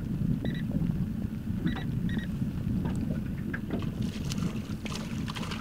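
Wind on the microphone and water lapping against a drifting small boat: a steady low rumble. A few faint short high beeps come about half a second, a second and a half, and two seconds in, with light clicks near the end.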